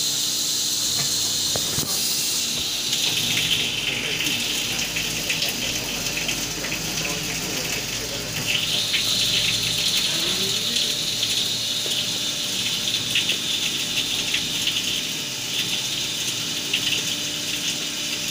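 Flood coolant spraying from a flexible nozzle inside a CNC milling machine, a steady gushing hiss that swells a few seconds in and again about halfway, over a faint steady machine hum.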